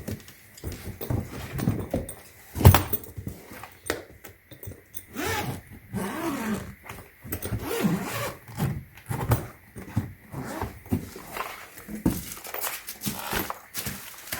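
Hard plastic knocks, clicks and rustling as spinner wheels are handled and fitted onto a hardshell suitcase, with one louder knock about three seconds in.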